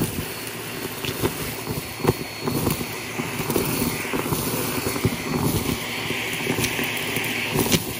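Vacuum cleaner running steadily with its brush nozzle sucking up a pile of lint and dust from carpet, with irregular clicks and rattles as small hard bits like beads and pebbles are pulled up the hose.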